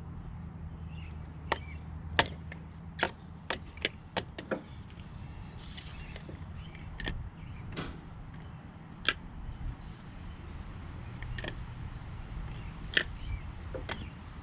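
Irregular sharp clicks and knocks of hard plastic and metal parts being handled while an effluent pump, its float and discharge pipe are fitted together, over a low steady hum.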